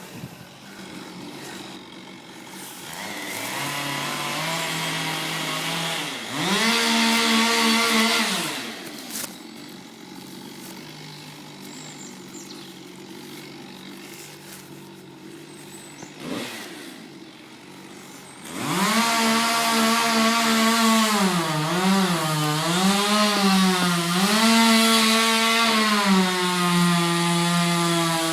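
Two-stroke chainsaw idling, revved briefly about six seconds in, then held at high revs for the last ten seconds, its pitch dipping and recovering several times as it cuts under load.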